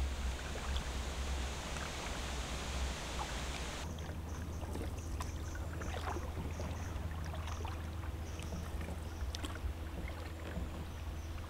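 Paddles stroking through calm river water, with drips, small splashes and water trickling off the blades. A steady low rumble runs underneath.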